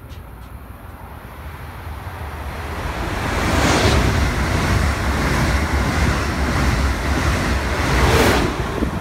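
Amtrak Acela Express high-speed electric trainset passing through the station at speed: a rush of air and wheel noise over a deep rumble. It builds over the first few seconds, is loudest as the front power car goes by about four seconds in, and peaks again as the rear power car passes near the end.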